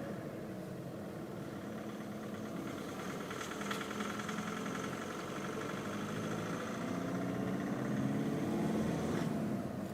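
2011 Volkswagen Polo TDI diesel engine running on its replacement fuel injectors, without the injector-fault noise. Its pitch and loudness climb over a few seconds, then fall back shortly before the end.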